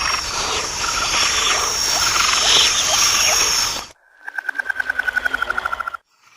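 A dense chorus of frogs calling over one another, which cuts off abruptly. After a short gap comes a single frog trill of rapid pulses, about a dozen a second, lasting about two seconds and dropping slightly in pitch.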